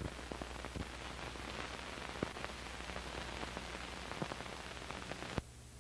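Steady hiss with scattered clicks and pops from the worn soundtrack of an old TV recording. It cuts off suddenly about five seconds in, leaving a fainter low hum.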